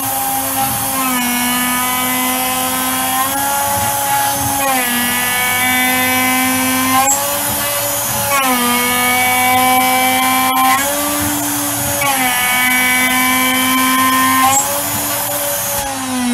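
CNC router spindle with a 6 mm four-flute end mill milling a full-width slot in an aluminium (AlCuPb) block: a high whine of several stacked tones that drops in pitch each time the cutter bites into a pass and rises again between passes, about every three and a half seconds. It cuts smoothly without chatter and sounds good, with the depth per pass cut to a quarter.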